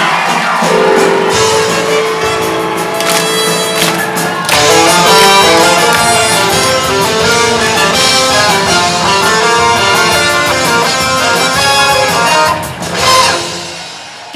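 Instrumental band music playing, with no singing, dying away near the end.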